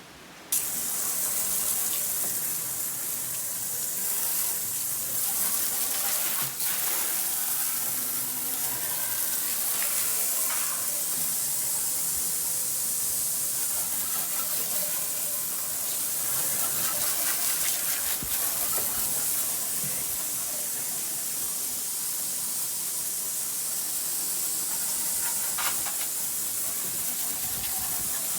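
Water rushing and spraying in a steady hiss that starts abruptly about half a second in.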